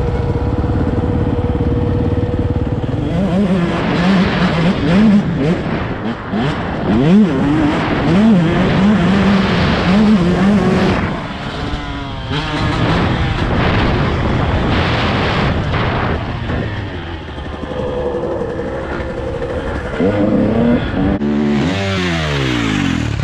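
Dirt bike engine heard from on the bike, holding a steady note at first, then revving up and down over and over as the throttle is worked. Near the end the revs fall away in a gliding drop.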